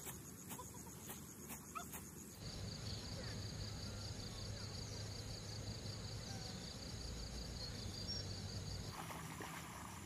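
Rural outdoor ambience: insects chirping in an even pulse of about five short high chirps a second over a low steady hum. In the first couple of seconds there is instead a run of sharp clicks.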